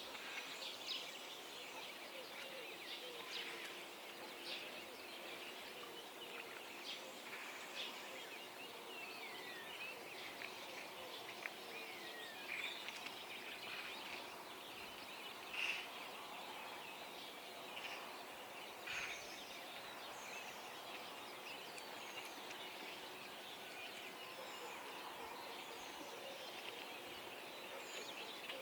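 Dawn chorus: many birds giving short chirps and quick gliding calls, scattered through the whole stretch over a faint steady background hiss.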